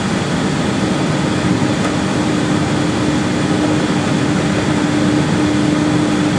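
Steady cockpit noise of an airliner taxiing on jet engines at idle, with cabin ventilation, and a steady hum that comes in about a second in.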